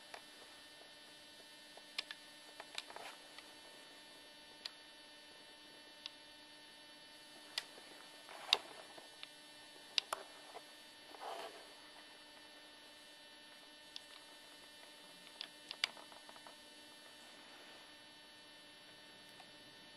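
Faint, steady electrical mains hum made of several even tones, with light clicks and small taps scattered through it.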